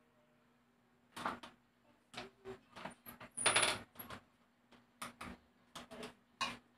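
A series of light, irregular clicks and clinks of small hard objects, about a dozen over several seconds, the loudest a short ringing clink about three and a half seconds in.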